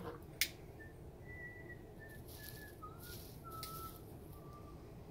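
Soft whistling by a person: a string of short held notes that step down in pitch, with a sharp click about half a second in.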